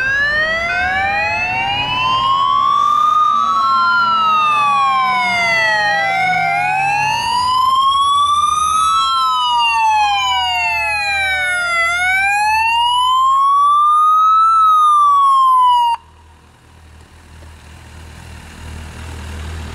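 Police motorcycle sirens wailing, two of them slightly out of step, each rising and falling slowly every few seconds. They cut off suddenly about 16 seconds in, leaving a low motorcycle engine rumble that grows louder toward the end.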